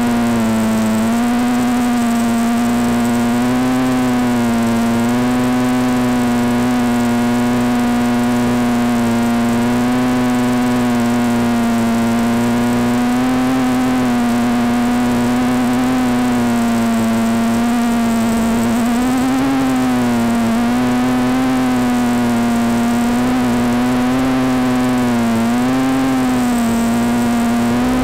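Micro quadcopter's Turnigy 1811 2900kv brushless outrunner motors and propellers in flight: a loud, steady buzzing whine whose pitch wavers slightly up and down with throttle, dipping briefly about a second in and wobbling a few times near the end.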